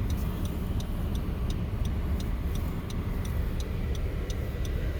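Moving car's road and engine noise: a steady low rumble, with faint high ticks about two to three times a second.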